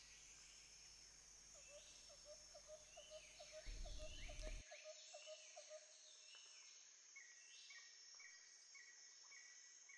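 Faint outdoor rural ambience: birds chirping in short repeated calls over a steady high insect drone.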